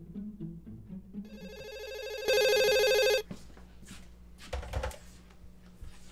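A corded telephone ringing: an electronic trill builds faintly, then rings out loudly for about a second. It is followed by a click and a low thump as the handset is picked up.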